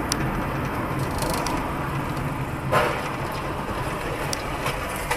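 Steady car engine and road noise picked up by a dashcam inside a moving car, broken about two and a half seconds in by the sudden crash of a nearby car collision.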